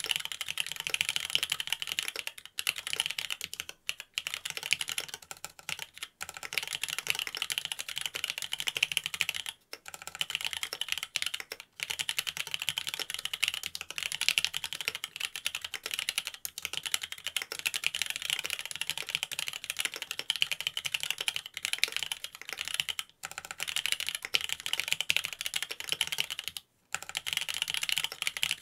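Typing on a Mont Cervin custom mechanical keyboard with Cherry Wyse Black linear switches (Hyperglide Black bottom housings, 70 g springs) on a carbon-fibre plate, under Key Kobo keycaps: a dense, continuous clatter of keystrokes broken by brief pauses a few times.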